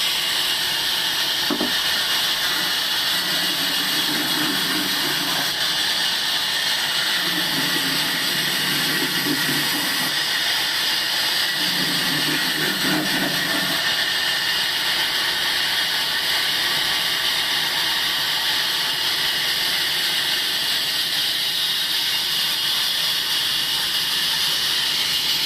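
Table sawmill machine running with a steady, loud hiss, with a lower hum coming in three times a few seconds apart in the first half.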